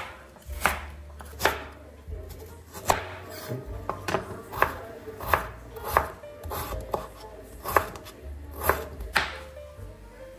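Chef's knife chopping carrots and potatoes on a wooden cutting board: sharp knocks of the blade against the board at an unhurried, uneven pace, about one every three-quarters of a second.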